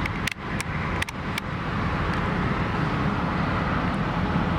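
Steady low rumble like a vehicle running or nearby road traffic, with four short sharp clicks in the first second and a half.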